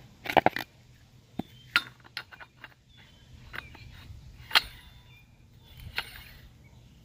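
Sharp clinks and knocks from a pressure-pot sandblaster's fill opening being handled: the plastic funnel lifted off and the fill plug fitted into the tank's neck. A quick cluster of hits comes near the start, then scattered single clicks, the sharpest about four and a half seconds in.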